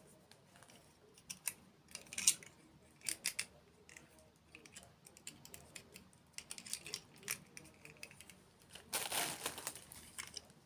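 Close-miked eating sounds from a dessert mukbang: scattered crisp clicks and crunchy crackles, with a longer crackling, crinkly burst about nine seconds in.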